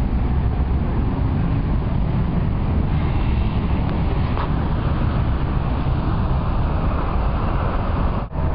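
Steady road-traffic rumble from cars, a bus and scooters on a busy city square, with a brief dropout near the end.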